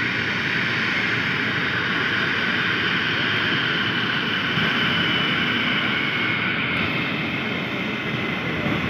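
Twin-engine jet airliner's turbofan engines running at taxi power: a steady whine over a broad roar as the plane taxis and turns.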